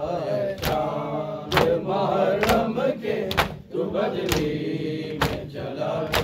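A noha, an Urdu Muharram lament, chanted by voices in a congregation. It is kept in time by matam, hands striking chests in unison, about once a second.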